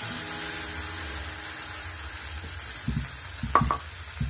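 Rice-flour batter sizzling in hot oil in a pan as a ladle spreads it in circles. From about three seconds in, a few short knocks as the ladle touches the pan.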